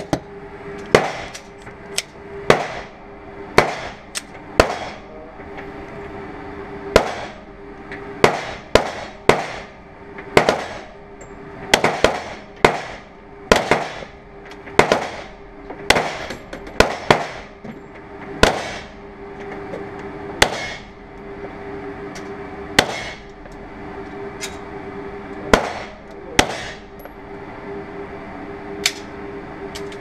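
Pistol shots, about two dozen at irregular intervals, some single and some in quick pairs, each ringing off the walls of an indoor range, over a steady hum.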